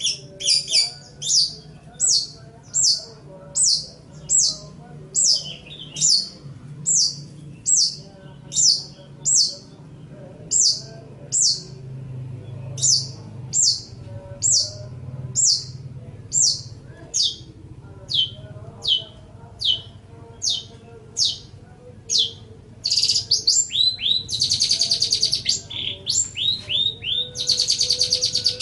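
Long-tailed shrike (cendet) singing: a steady run of short, high notes that slide downward, about one and a half a second, breaking near the end into two longer harsh, rasping calls.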